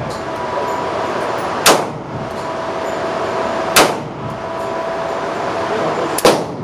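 Heizer PKO-45 .45 pistol fired three times, about two seconds apart, on an indoor range, over a steady background hum.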